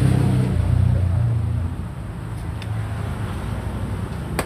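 Low engine rumble of a nearby motor vehicle, loud for the first second and a half and then fading to a lower rumble. A single sharp click comes right at the end.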